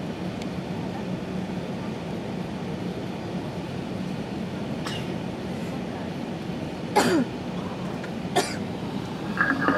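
Steady cabin hum of an Airbus A380 taxiing, with a person coughing twice, sharply, near the end.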